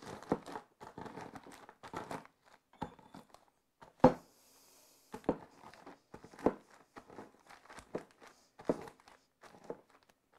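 Marble rolling pin pressed and rolled over Oreo cookies in a plastic zip-top bag: the plastic crinkles and the cookies crunch and crack irregularly, with a sharp knock about four seconds in.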